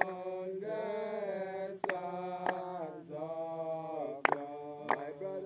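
A congregation sings a hymn slowly, drawing out long notes, with no clear words in this stretch. Sharp beats cut through the singing, falling in pairs about every two and a half seconds.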